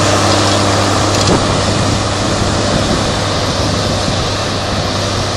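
HBM BG190TA-4 motor grader's diesel engine running steadily under load as the grader works its blade through turf and soil, with one short knock about a second in. The sound fades a little as the machine moves away.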